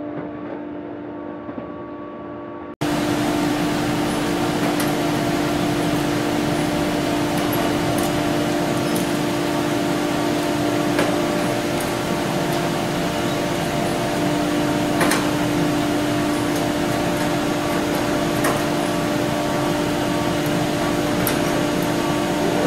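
Steady mechanical hum with a strong low tone, stepping up louder about three seconds in. Over it come sharp clicks every few seconds, from clecos being set in the aluminium wing skin.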